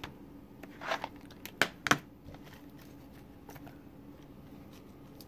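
Plastic Blu-ray cases in shrink wrap being handled on a wooden table: a brief rustle about a second in, then two sharp clicks close together about two seconds in.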